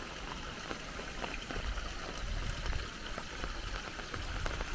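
Muddy creek water pouring steadily through a small makeshift sluice gate and splashing into the stone channel below.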